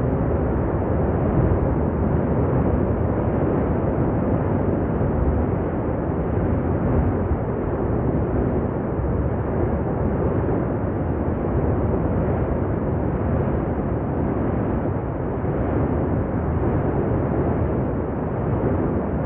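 Continuous deep rumble of the 2021 La Palma volcanic eruption, its vent throwing up a lava fountain. The noise is steady, with no separate blasts standing out.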